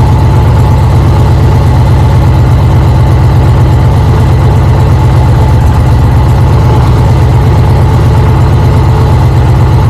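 Indian Challenger's liquid-cooled V-twin engine idling steadily, with a fast, even low pulse.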